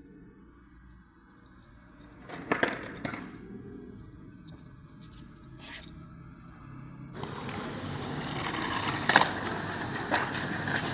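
Skateboard wheels rolling on pavement with a low rumble, and a few sharp clacks of the board.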